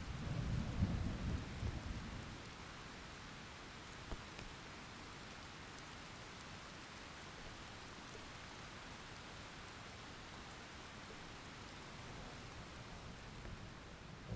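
Steady rain falling, with a low rumble of thunder dying away over the first two seconds.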